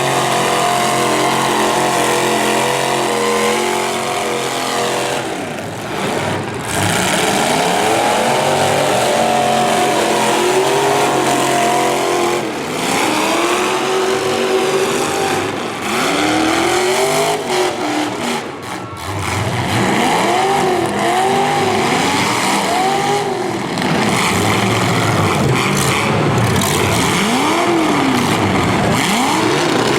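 Several V8 demolition derby car engines running hard and revving up and down over and over, the pitch rising and falling every second or two.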